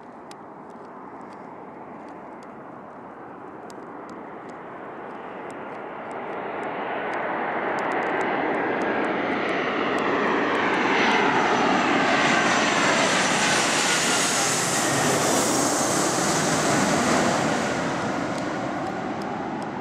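Finnair Embraer 190 jet on final approach with landing gear down, its twin turbofan engines at approach thrust. The rush and high whine grow steadily louder as it comes in low, are loudest as it passes overhead about two-thirds of the way through, then begin to fade as it flies on toward the runway.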